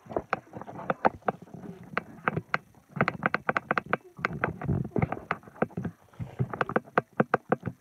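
Rapid, irregular clicking and knocking, several sharp clicks a second, with a short pause about two and a half seconds in and a few heavier low thuds near the middle.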